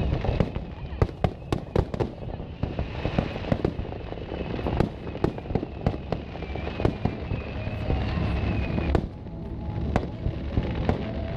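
Aerial fireworks display: shells bursting in quick succession, with many sharp bangs over a continuous low rumble.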